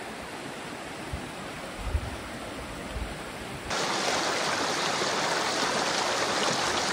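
River water flowing, a steady rushing hiss, with a few dull thumps in the first three seconds. About four seconds in the rush jumps suddenly louder and brighter.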